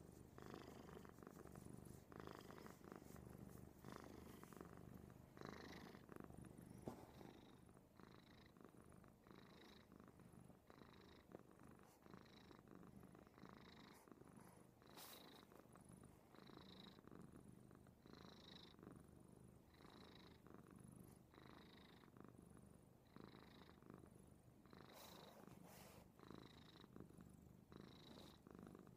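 Domestic cat purring steadily and softly close up, with a faint rhythmic pulse about once a second.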